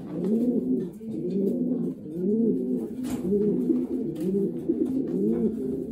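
Racing pigeons cooing, many birds at once, their calls overlapping without a break.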